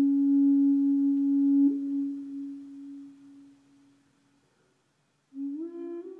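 Native American flute holding one steady note, which flicks briefly higher about two seconds in and then fades away. After a short silence, new notes start, stepping upward near the end.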